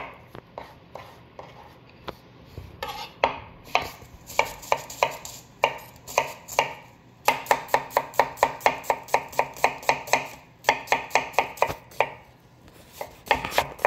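Knife dicing vegetables on a cutting board: runs of quick, even chopping strokes, about five a second at their fastest, broken by short pauses.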